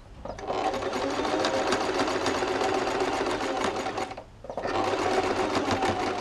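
Domestic electric sewing machine running, stitching lace trim onto fabric in a fast even run of stitches. It stops for about half a second around four seconds in, then starts again.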